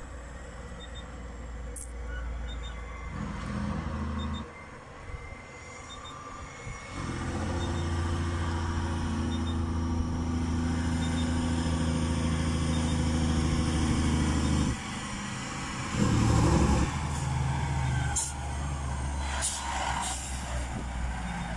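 Detroit Diesel Series 60 engine of a loaded Western Star logging truck on its jake brake going downhill: a steady, evenly stacked engine-brake note that cuts in and out. It is loudest and longest through the middle, then drops away and comes back briefly. A few short sharp noises come near the end.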